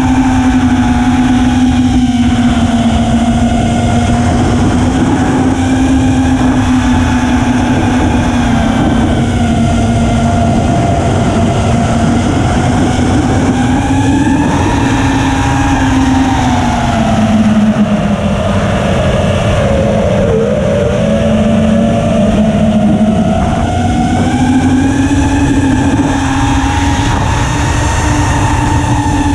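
The four iFlight 1750KV brushless motors and 5-inch propellers of an ImpulseRC Apex FPV quadcopter in flight, heard from onboard: a loud, steady buzzing whine whose pitch rises and falls slowly with the throttle, over a low rumble. About two-thirds through, the pitch dips and the tone wavers and splits as the motors run at different speeds.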